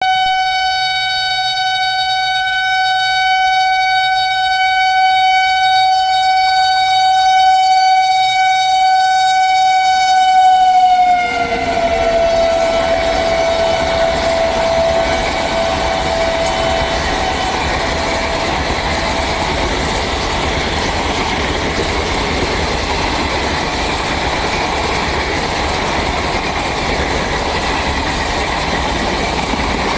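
WAP-5 electric locomotive horn sounding one long continuous blast. About eleven seconds in it drops in pitch as the locomotive passes, then fades out. The express's coaches then run past at speed with a steady noise of wheels on rails.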